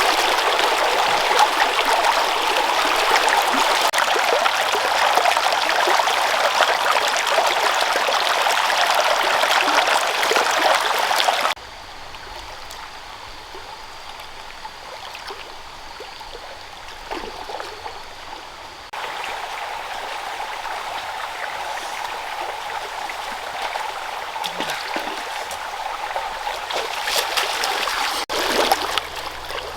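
Running water flowing steadily. About a third of the way in it cuts abruptly to a much quieter stretch with a faint steady high whine, then comes back louder about two-thirds of the way through.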